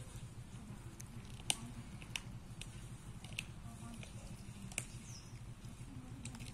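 A street cat chewing and tearing at raw meat: irregular wet clicks and smacks of its jaws, a few sharper ones standing out against a steady low hum.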